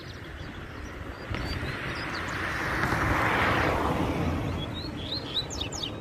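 A vehicle passing by, its noise swelling to a peak about three and a half seconds in and then fading, with short, high chirps from coleiros (double-collared seedeaters) before and after it.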